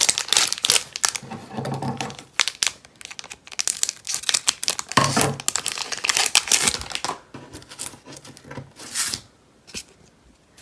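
Foil wrapper of a Pokémon TCG booster pack being torn open and crinkled by hand. It comes in crackling bursts, heaviest in the first few seconds and again about five to seven seconds in, and fades near the end.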